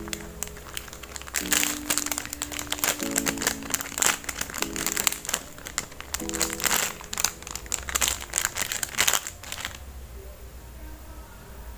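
Packaging crinkling as it is handled and unwrapped, in dense crackles that stop near the end, over soft background music with held chords.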